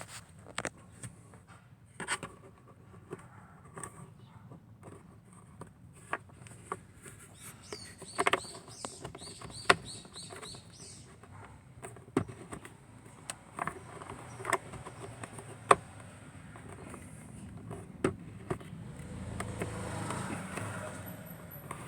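Scattered clicks and light knocks of plastic parts being handled during a cabin air filter change in a Hyundai YF Sonata. A short run of high squeaks comes about nine seconds in, and a longer scraping rustle comes near the end.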